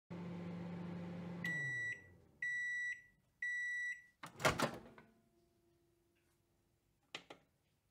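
Microwave oven running with a steady hum that winds down in pitch as it stops, then three long beeps marking the end of the cooking time. A loud clunk follows as its door is opened, and a couple of light clicks come near the end.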